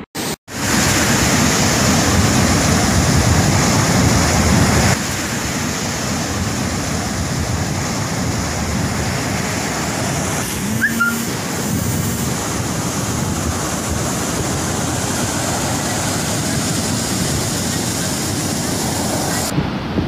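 Heavy sea surf breaking and washing up the shore in a steady rush, with wind on the microphone. The sound cuts out for a moment just after the start.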